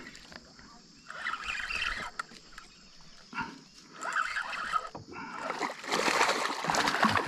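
A hooked fish splashing and thrashing at the water's surface while being reeled toward the boat, in short bursts, the loudest spell of splashing coming in the last second or so.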